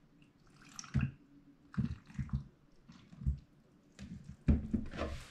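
Milk pouring from a plastic gallon jug into a blender jar onto banana and avocado, splashing in a series of short, uneven spurts, the loudest about four and a half seconds in.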